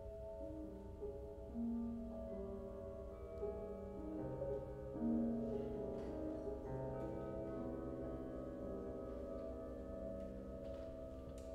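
Soft, slow chamber music: overlapping sustained tones from violin, cello and piano enter one after another over a steady ringing drone of rubbed tuned wine glasses (glass harmonica). Some of the held string notes waver with vibrato.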